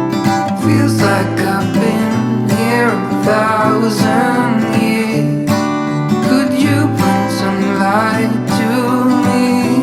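Background music: a song built on strummed acoustic guitar, with a wavering melody line over it.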